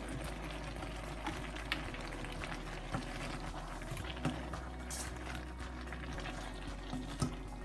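Pork and vegetables simmering in a stainless steel pan with a steady bubbling hiss, while a metal spoon stirs them, clinking and scraping against the pan a few times.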